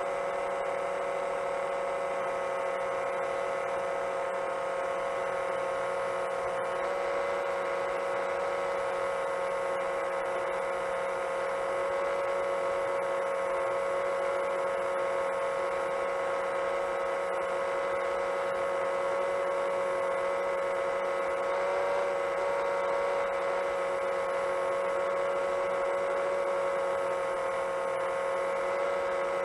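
7-inch long-range quadcopter's motors and propellers humming steadily at cruise throttle, with a high electric whine over it. The pitch rises slightly about a quarter of the way in.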